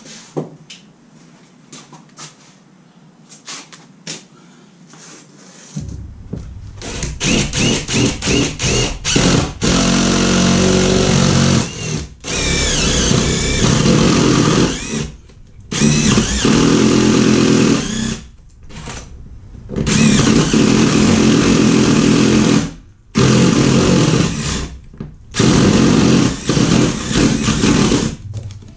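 Light handling clicks at first, then a cordless drill boring a hole through a wooden house wall. It starts with a few short trigger pulls, then runs in long bursts under load, stopping briefly several times.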